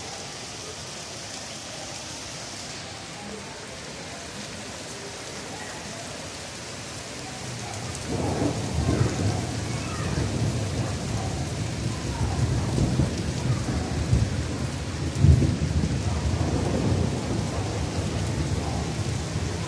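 Rainstorm: steady rain, then about eight seconds in a loud, low, irregular rumbling sets in and keeps on, loudest about fifteen seconds in.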